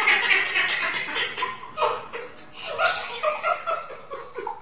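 A man and a woman laughing hard, in uneven bursts of chuckling and giggling, loudest at the start.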